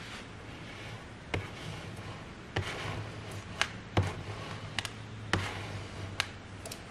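Small plastic squeegee rubbing a lettering transfer sheet down onto a painted plaque: soft scraping broken by a handful of sharp taps and clicks at irregular moments, over a low steady hum.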